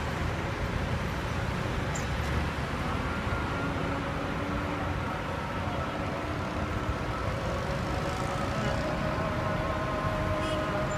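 Steady city traffic noise from a busy multi-lane road below, with faint long-held tones drifting over it.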